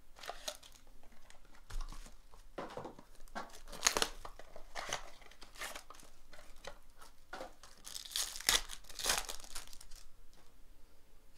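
Clear plastic wrapper crinkling and a cardboard trading-card box being torn open and unfolded by hand, in irregular rustling bursts, loudest about four seconds in and again around eight to nine seconds.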